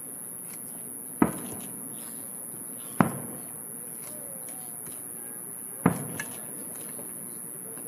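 Aerial firework shells bursting: three loud booms a couple of seconds apart, each with an echoing tail, and a smaller pop just after the third.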